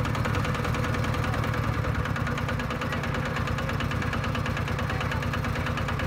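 Kubota RT110 walking tractor's single-cylinder diesel engine running steadily with a fast, even chugging beat.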